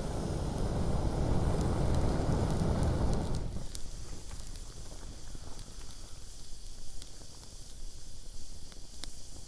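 Steady blowing into a campfire's embers, a rushing breath that stops abruptly about three and a half seconds in. Then the wood fire crackles with sparse small pops.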